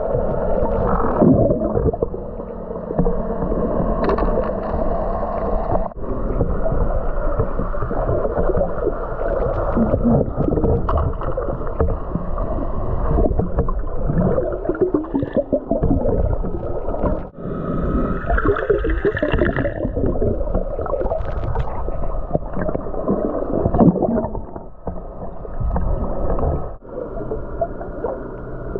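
Muffled underwater sound from a submerged camera: water gurgling and sloshing around it, with a wavering hum of boat engines carried through the water.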